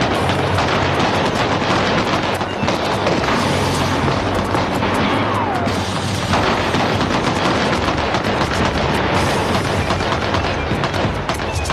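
Rapid automatic gunfire, shot after shot with hardly a break, in a film shootout, over dramatic film music.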